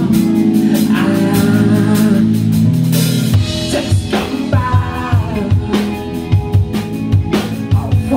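Live band playing a song: held chords over a drum kit, with the kick drum striking a steady beat about twice a second from about three seconds in.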